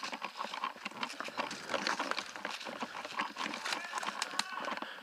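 Footsteps crunching and snapping through dry twigs and leaf litter on a forest floor, an irregular run of crackles and light cracks as the walker moves quickly.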